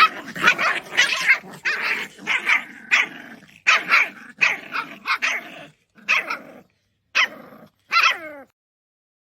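Puppy barking over and over in short barks, about two a second. The last call, about eight seconds in, falls in pitch, and then the barking stops.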